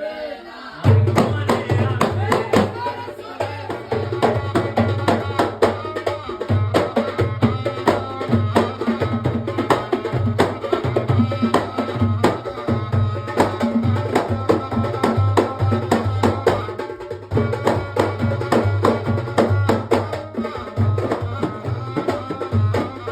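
Folk-style music with hand-drum percussion keeping a steady, driving beat.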